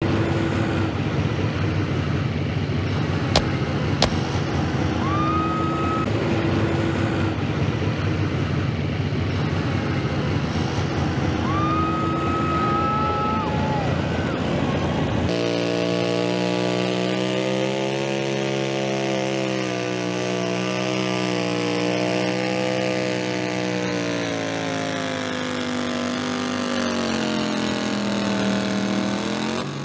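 Turbocharged Light Limited pulling tractor: at first an engine rumble with a turbo whistle that rises and holds twice, and two sharp clicks about three and four seconds in. About fifteen seconds in it changes suddenly to the engine running hard under load as it pulls the sled, its pitch sinking slowly, then rising again near the end.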